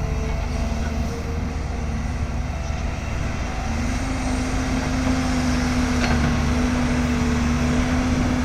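Tata Hitachi excavator's diesel engine running steadily under load. About four seconds in, a whine steps up slightly in pitch and the engine grows a little louder as it works harder.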